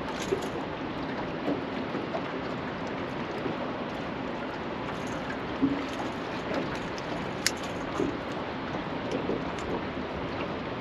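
Steady rushing noise of wind and river water on open water, with a few light knocks and one sharp click about seven and a half seconds in.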